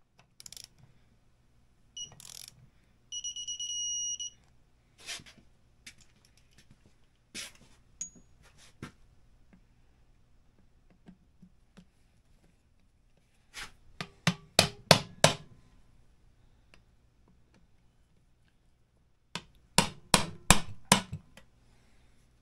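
Bolts being tightened with hand tools on a snowmobile engine's crankcase: scattered clicks and knocks of metal tools, and two steady high electronic beeps near the start, the second held about a second. Two quick runs of sharp clicks come around the middle and near the end.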